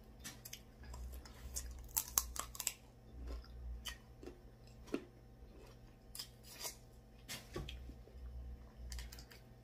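Snow crab leg shells cracking and snapping apart in the hands, close to the microphone, with chewing between the cracks. The sharpest cracks come in a cluster about two seconds in, with more scattered through the rest.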